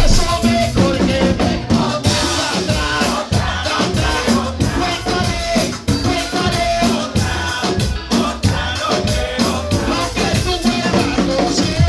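Upbeat music with a steady drum beat, percussion and a singing voice.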